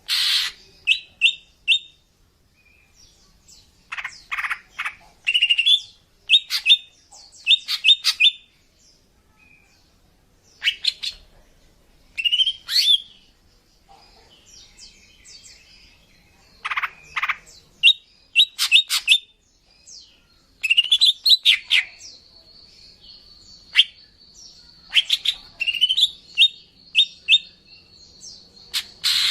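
Female green leafbird (cucak ijo) calling in short bursts of sharp chirps and quick rising notes, a burst every second or two. This is the female call used to lure male cucak ijo. In the last third a steady high thin tone runs beneath the calls.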